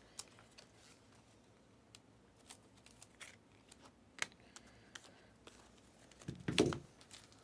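Faint handling noise from trading-card packaging: scattered light clicks and rustles, then a louder bump and rustle about six and a half seconds in.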